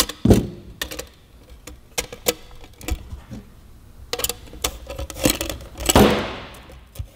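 Small metal hardware clicking and clinking as nuts, washers and a stainless steel bracket are handled and snugged up on a license plate frame. There are scattered light ticks, and a short, louder scrape comes about six seconds in.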